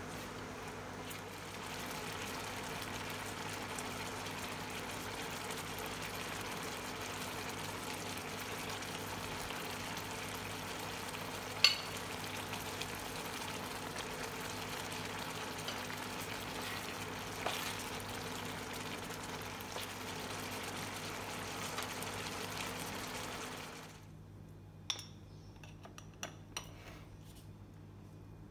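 Diced vegetables in sauce sizzling and simmering in a frying pan over a steady low hum, with an occasional sharp clack of a utensil against the pan, the loudest near the middle. About three-quarters of the way through the sizzle cuts off abruptly, leaving a faint hum and a few light clicks.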